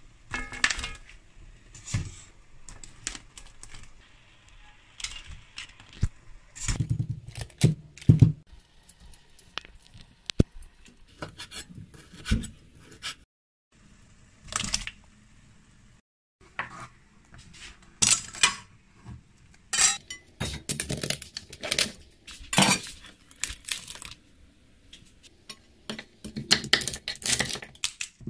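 Kitchen handling sounds: a string of clinks and knocks from a steel cooking pot, a wire strainer and utensils, with food dropped in and lifted out. Near the end comes the cracking and tearing of a boiled crab's shell being pulled apart by hand.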